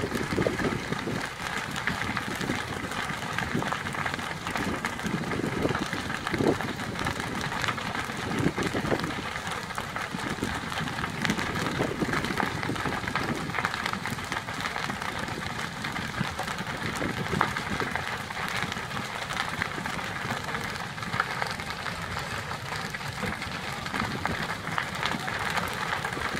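Large building fire burning steadily, a dense run of small cracks and pops over a constant rushing noise.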